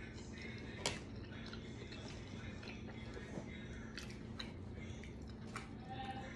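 A person chewing a mouthful of shrimp taco with mouth closed. There is a few sharp mouth clicks, the loudest about a second in, over a low steady hum.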